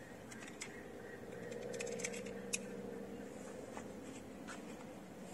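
Light clicks and scrapes from hands handling a small tripod's phone clamp, with one sharper click about two and a half seconds in, over a faint hum that swells briefly in the middle.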